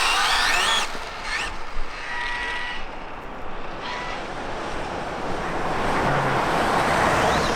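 Electric RC car motor whining up in pitch in short throttle bursts as the car is tested after a crash, over a wash of highway traffic noise that swells near the end as a vehicle passes.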